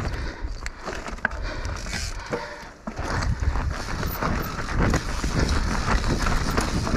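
Mountain bike clattering and rattling down a steep, rutted trail, with irregular knocks and clicks over a steady low rumble.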